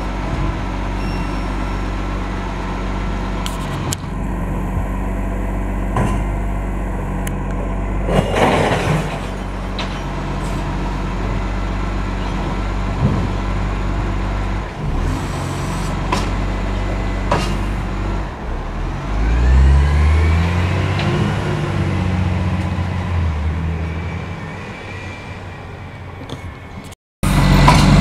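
Recycling truck's diesel engine running at idle with occasional clunks and a short hiss of air about eight seconds in. About nineteen seconds in, the engine revs up as the truck pulls away, and then it fades.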